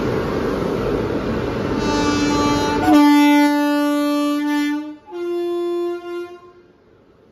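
Rumble of an electric locomotive and its train moving off, then the locomotive's horn sounds two long blasts, the first about two seconds long and the second slightly higher in pitch and shorter.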